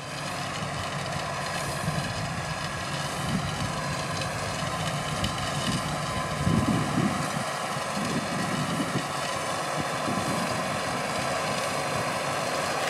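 Case IH Luxxum 120 tractor's four-cylinder diesel running steadily under load while it pulls a Gaspardo precision maize planter through a field, with a steady whine over the engine noise.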